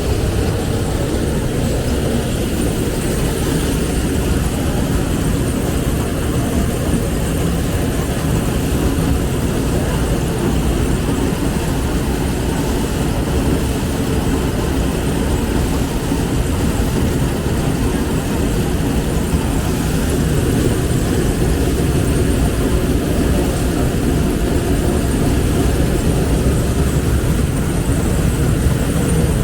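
A loud, steady mechanical drone, heavy in the low end, that holds without a break.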